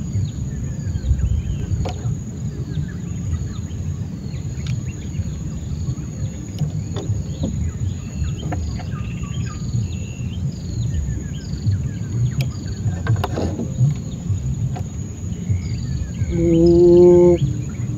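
Riverside ambience: a steady high insect drone and a bird's short falling chirps repeated every second or so, over a low rumble. A short held tone comes in near the end.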